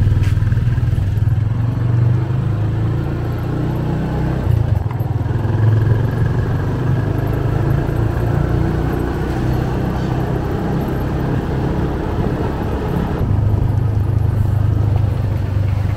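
Motorcycle engine running steadily while riding along, with a low rumble and road noise throughout.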